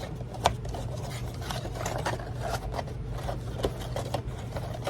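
Cardboard trading-card box and its packs being handled: scattered rustling, scraping and light taps, with one sharper click about half a second in, over a steady low hum.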